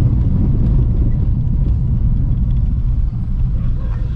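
Car being driven, a steady low rumble of engine and road noise heard from inside the cabin.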